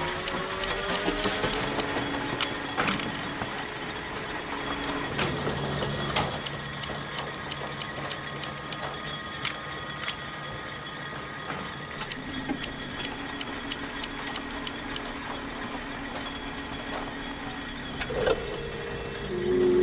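Wool-plying (twisting) machine in a spinning mill running, with a steady hum under rapid ticking and clatter. A whine rises in pitch over the first couple of seconds, and the hum's tone shifts a few times.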